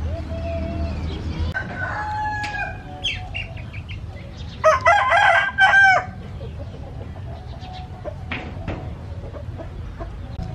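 Chickens clucking, then a rooster crows once close by about four and a half seconds in: one loud, drawn-out crow of about a second and a half with a brief break before its final note.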